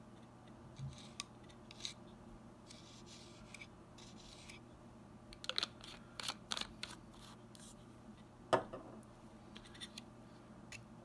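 Faint workbench handling sounds while CA accelerator (kicker) is applied to a freshly glued balsa joint: a couple of short spray hisses a few seconds in, then a scatter of small clicks and taps from the bottle and parts, with one sharper click about eight and a half seconds in, over a low steady hum.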